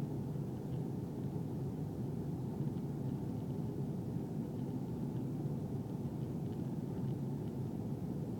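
Steady low rumble of an Airbus A320 in flight, heard from inside the passenger cabin: engine and airflow noise.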